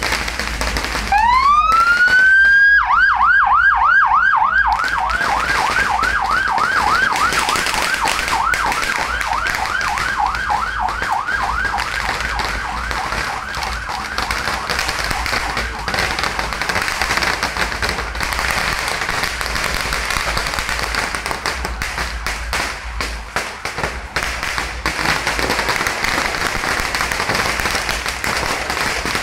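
Ambulance siren winding up in a rising wail, then switching to a fast, repeating yelp that fades away as the ambulance moves off. After that, a steady hiss of crowd and street noise with scattered sharp clicks.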